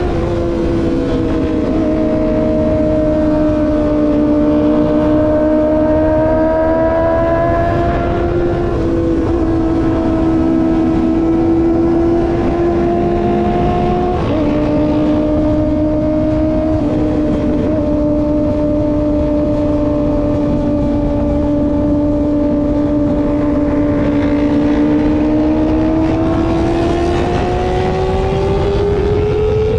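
Kawasaki ZX25R's 250 cc inline-four engine running at steady cruising revs, with a small dip in pitch about halfway and rising revs over the last few seconds. Wind rushes steadily underneath.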